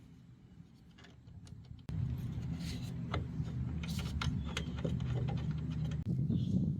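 Bolts being tightened into the grille's side piece: a run of small clicks and ticks. About two seconds in, a steady low hum starts suddenly and runs under the clicks.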